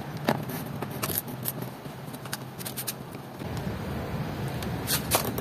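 Small sharp clicks and light scraping from a hand screwdriver and the plastic switch housing as the right handle switch of a Yamaha NMAX is screwed back onto the handlebar, over a steady low hum.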